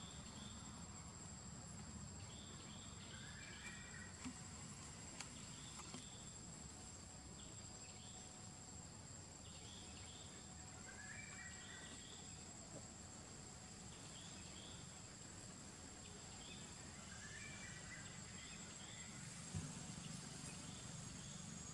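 Faint forest ambience: insects keep up a steady high-pitched drone, with short falling chirps every few seconds.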